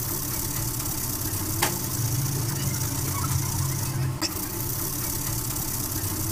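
A steady low hum of a running motor, louder in the middle, with a toothbrush scrubbing foamy cleaner into the rubber lettering of a tyre sidewall and two short clicks.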